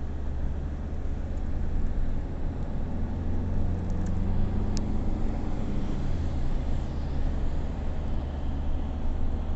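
Steady low rumble of a motor vehicle's engine and road noise, the engine note rising and falling a few seconds in.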